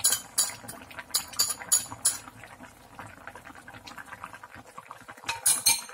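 A utensil clicking and scraping against a plate and a metal pan as chopped green onion is pushed into a simmering stew and stirred in. There are quick clusters of clicks in the first two seconds and again near the end, with quieter low bubbling in between.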